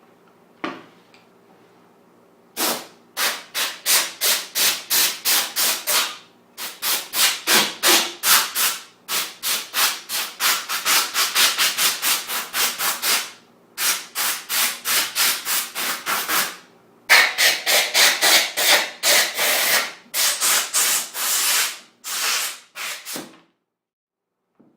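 Hand sanding with quick back-and-forth strokes, about three to four a second, in several runs broken by short pauses, preceded by a single light knock.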